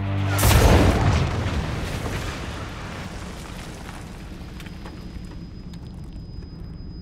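A grenade-launcher round exploding: one sudden loud blast about half a second in, dying away over several seconds into a low rumble. A thin, steady high ringing tone comes in about halfway through.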